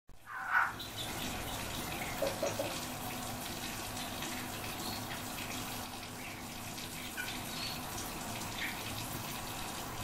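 Short, scattered high chirps and calls from caged songbirds, the loudest right at the start, over a steady rushing hiss like running water. A quick run of three ticks about two and a half seconds in.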